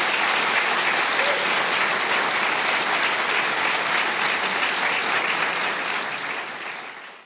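Theatre audience applauding steadily, fading away near the end.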